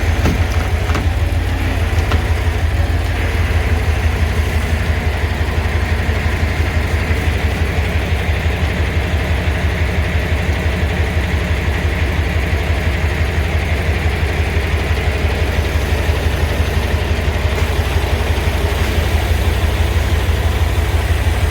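Truck diesel engine running steadily at idle, a deep, even throb.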